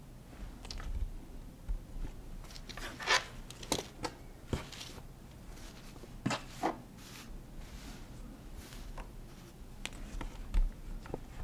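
Rustling and handling of a polyester baby sleeper on a tabletop, in short scattered bursts with a few sharper clicks.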